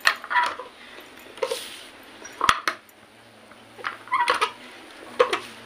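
Metal clinks and knocks from a hand-lever papad press being handled, its lever and hinged plate knocking as it is opened and the dough ball is set down. Half a dozen short separate knocks, some ringing briefly, with the sharpest about halfway through.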